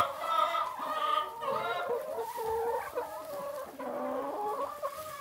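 A flock of domestic hens clucking at close range, several calls overlapping and wavering in pitch.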